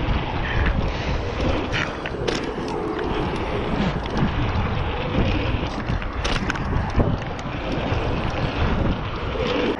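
Wind rushing over a GoPro's microphone while a mountain bike rolls down a dirt jump line, its tyres running on packed dirt. Scattered sharp clicks and rattles from the bike.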